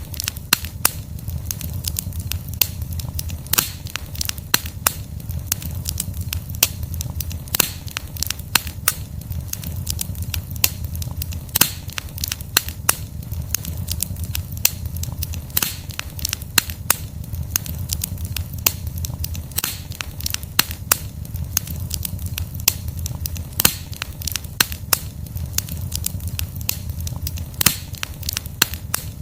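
Wood campfire burning, with logs crackling and popping in many irregular sharp snaps over a steady low rumble of the flames.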